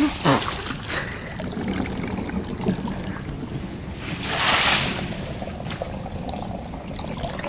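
Rain falling and water trickling and running over the ground. About four and a half seconds in, a louder rush of water swells and fades.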